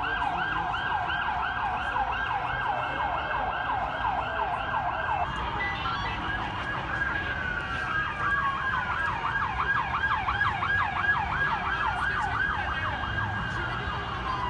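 Emergency vehicle sirens: a fast yelping siren sweeping up and down about three times a second, joined about five seconds in by a slower wailing siren that glides down and back up. Both run over a low street rumble as emergency services respond to the explosion and fire.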